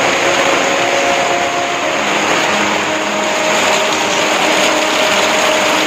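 Heavy rain falling in a steady, loud hiss.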